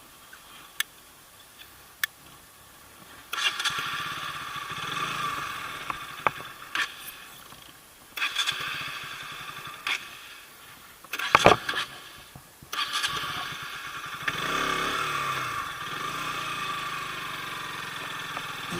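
KTM RC 125's electric starter cranking its single-cylinder engine in several separate attempts, with a loud knock partway through and a long continuous crank near the end: a motorcycle that won't start.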